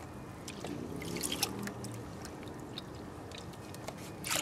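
Water sloshing and trickling as a plastic gold pan is swirled and dipped in a tub of water to wash out creek material, with a louder splash near the end as the pan is lifted.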